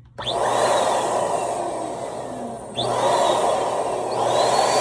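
Electric balloon pump switching on and blowing air into a small balloon; its level drops briefly and jumps back up a little under three seconds in.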